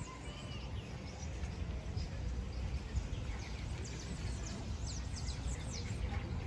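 Small birds chirping in park trees, with a quick run of high, steeply falling chirps about halfway through, over a steady low background rumble.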